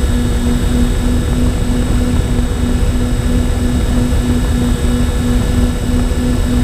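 Electric motors and propellers of a MyTwinDream twin-motor FPV plane running at steady cruise, heard from the onboard camera with rushing wind noise. The main hum is steady and pulses about three times a second, with a thin high whine above it.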